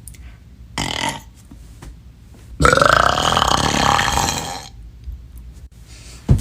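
A person burping from a video clip: a short sound about a second in, then one long, loud burp of about two seconds whose pitch rises and then falls.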